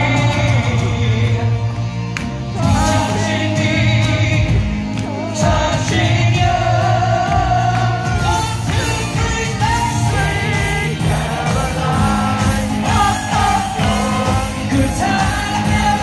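Male singer singing live through a handheld microphone over a full backing band with a steady drum beat.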